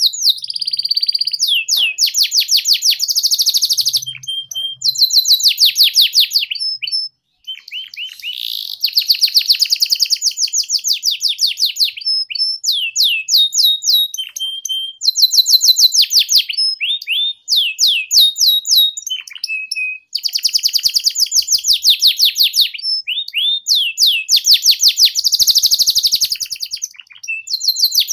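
Domestic canary singing a long song of fast trills and rapidly repeated chirping notes, phrase after phrase, with brief pauses between phrases.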